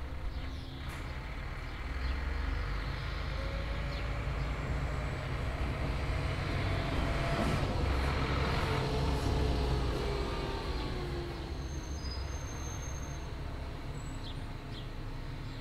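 A steady low rumble that swells to a peak about halfway through and then eases off, with a faint tone gliding up and then down in pitch.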